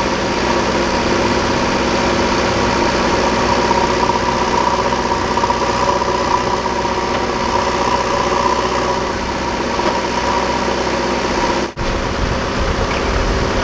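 Diesel engines of a Kubota MU4501 tractor and a JCB backhoe loader running steadily, a constant engine hum. The sound drops out for an instant near the end, then comes back heavier in the bass.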